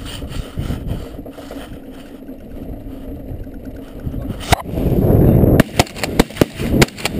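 Wind and rustling against a layout blind in corn stubble. About four and a half seconds in there is a sharp crack, then a loud rush as the hunters sit up out of their blinds. It is followed by a rapid volley of about seven shotgun shots from several hunters firing at ducks.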